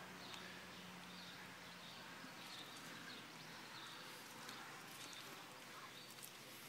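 Near silence: faint outdoor background noise.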